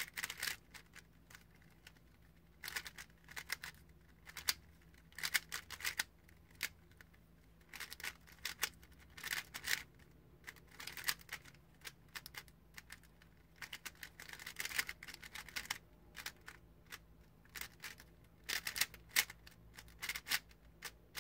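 GAN 356 Air SM magnetic 3x3 speedcube being turned fast by hand during a solve: runs of quick plastic clicks and clacks as the layers turn and snap into place, broken by short pauses.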